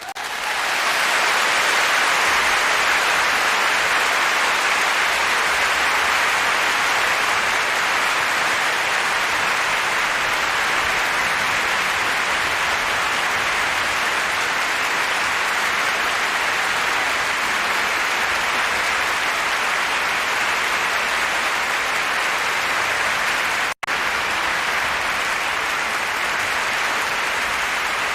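A large audience applauding, breaking out at once and holding a steady, dense clapping, with a split-second dropout near the end.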